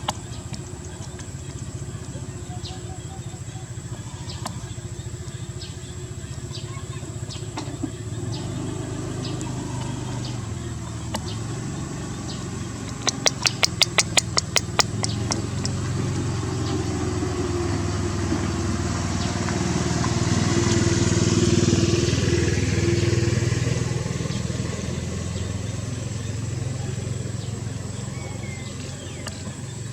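Steady low engine rumble that swells and fades again about two-thirds of the way through. Shortly before the middle there is a quick run of about a dozen sharp clicks lasting about two seconds.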